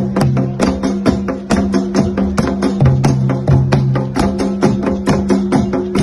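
Ijexá rhythm played by a large percussion group: atabaque hand drums struck in a fast, steady pattern together with agogô bells, over low ringing tones.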